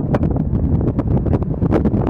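Strong wind buffeting the microphone: a heavy, loud rumble full of rapid crackles and pops.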